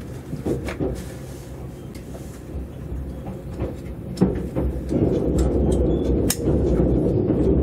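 Tobu 200 series train heard from inside the car while running: a steady low rumble of wheels and running gear, with a few sharp clicks and knocks. The running noise grows louder about five seconds in.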